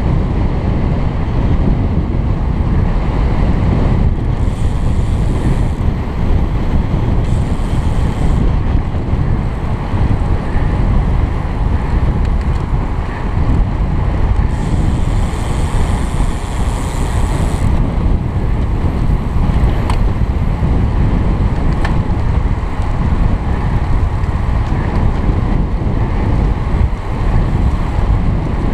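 Wind rushing and buffeting over a helmet-mounted camera's microphone as a road cyclist rides at race speed in a group, a steady low rumble with a few brief patches of higher hiss.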